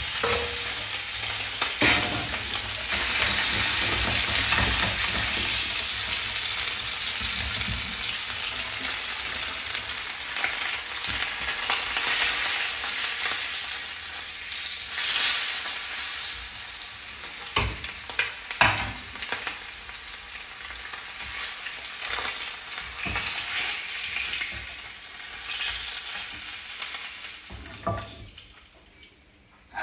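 Pieces of branzino fish sizzling as they shallow-fry in hot oil in a frying pan, with a few sharp clicks of a spatula turning them against the pan. The sizzling fades away near the end as the last pieces are lifted out.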